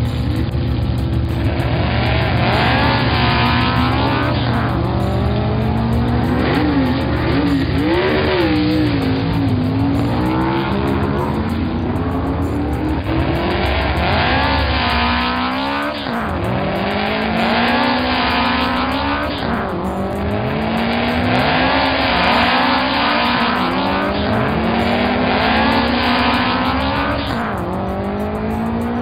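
Race car engine sound effects for a cartoon race: engines revving hard, their pitch climbing and then dropping back again and again, like shifting up through gears.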